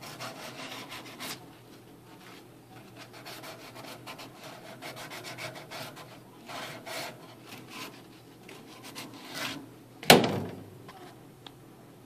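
Hand work at a PVC condensate drain fitting on a furnace cabinet: irregular scraping and rubbing, with one sharp, loud knock about ten seconds in.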